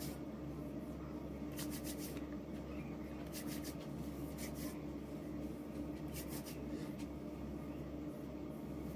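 Fingertips rubbing and patting liquid foundation into the skin of the face, in short clusters of quick strokes every second or two, over a steady low hum.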